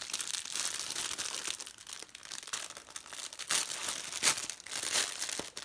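Clear plastic wrapping of a makeup brush set crinkling and rustling as it is handled and pulled open, with louder sharp crackles about three and a half, four and five seconds in.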